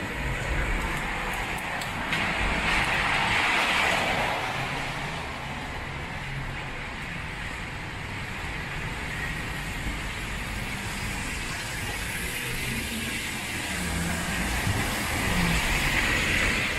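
Traffic on a wet street: tyres hissing on wet pavement over a steady low rumble of engines. The hiss swells as vehicles pass, once about three seconds in and again near the end, when a bus goes by close.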